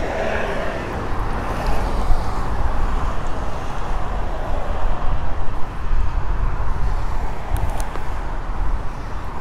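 Steady road traffic from passing vehicles: an even low rumble and hiss that swells and eases a little.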